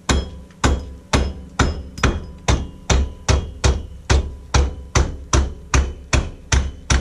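Rubber mallet striking the rear wheel hub of a Polaris Sportsman ATV again and again, about two even blows a second, each a sharp knock with a short ring. The hammering is working the hub loose from the axle.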